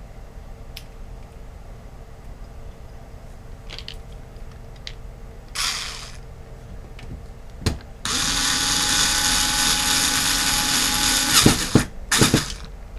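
Electric screwdriver driving screws back into a PC power supply's metal case: a short burst, then about three seconds of steady running with a level motor whine, ending in a few sharp clicks and short bursts as the screw seats.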